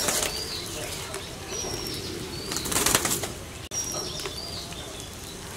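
Short, high, whistled bird calls recurring about every two seconds over a steady sizzle of egg frying in oil. There are two brief rushing bursts of noise, one at the start and one about three seconds in.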